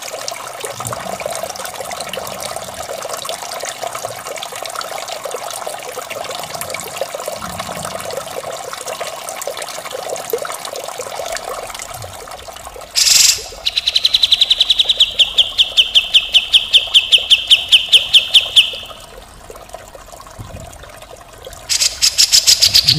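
Trickling water runs for about the first half. Then a songbird gives a fast, rattling trill of about seven pulses a second for about five seconds, and starts again near the end.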